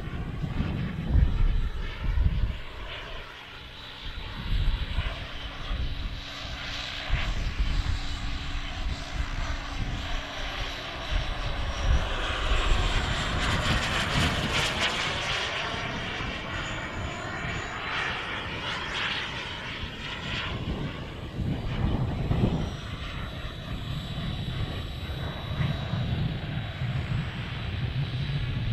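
Xicoy X-45 model jet turbine of a Freewing T-45 RC jet in flight, a steady rushing jet noise that swells to its loudest about halfway through as the plane passes over, then eases off.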